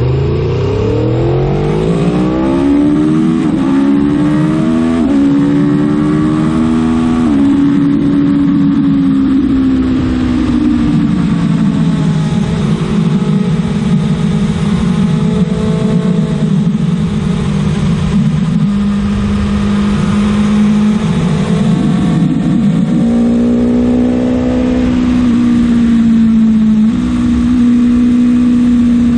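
Aprilia Tuono motorcycle engine accelerating hard, its pitch climbing and dropping back with each of several quick upshifts in the first seconds, then holding high steady revs with brief dips.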